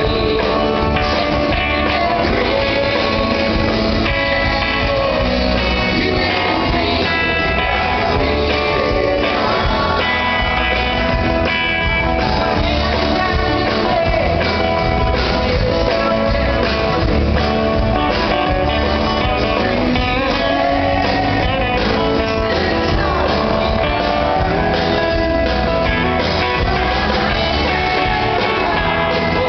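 A live country-rock band playing a song with sung vocals over guitars, bass and drums.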